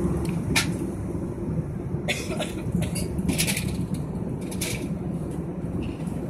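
Steady low rumble of a jet airliner's cabin noise in flight, with a few short clicks and rustles about half a second in and again between two and five seconds in.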